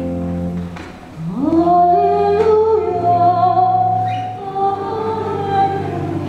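Church organ holds a chord that ends about a second in, then voices begin singing a hymn with organ accompaniment.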